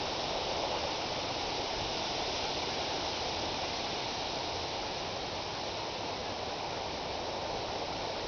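Steady rushing outdoor noise with no distinct sounds standing out.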